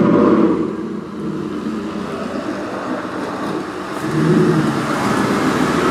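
Ford F-150 Raptor pickup truck's engine running as the truck drives up and pulls in. It is loudest right at the start, eases off, then swells again about four seconds in.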